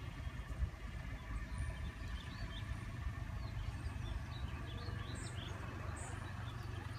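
Small birds chirping, a run of short high chirps from about two seconds in until near the end, over a steady low rumble.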